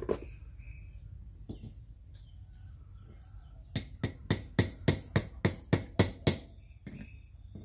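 A run of about ten sharp taps in quick, even succession, roughly four a second, lasting about two and a half seconds.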